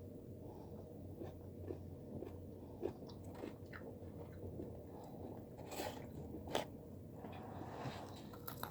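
Close-up eating sounds of fried chicken: biting and chewing with small crunches and moist clicks, a few sharper bites standing out.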